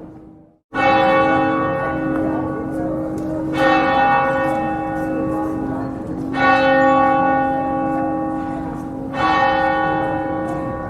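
Church bell tolling: four strokes about three seconds apart, each ringing on and slowly dying away over a steady low hum. The audio drops out for a moment just before the first stroke.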